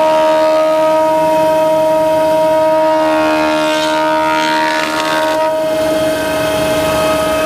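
Restored stationary woodworking machine running with a steady, multi-toned motor and cutterhead whine. A rougher hissing noise rises briefly past the middle, as of a board being cut.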